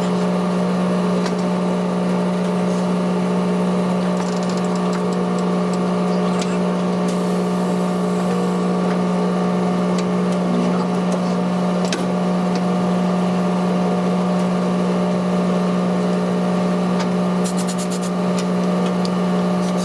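A steady machine hum holding one constant pitch, with a few light clicks and rattles about four seconds in and again near the end.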